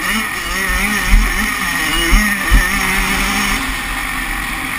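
Kawasaki 85cc two-stroke motocross bike engine running hard, its pitch rising and falling as the throttle is worked. Wind buffets the chest-mounted microphone, and a few low thumps come about one and two seconds in.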